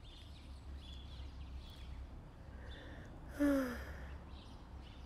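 A woman's short voiced sigh, falling in pitch, about three and a half seconds in, over faint bird chirps and a low steady outdoor rumble.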